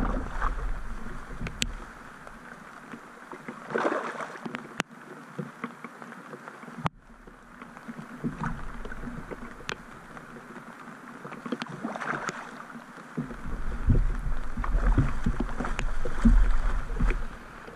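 Water splashing as a hooked hampala barb is played at the surface, over steady rain on the lake. A few sharp knocks and a low rumble of rod and camera handling are loudest near the end.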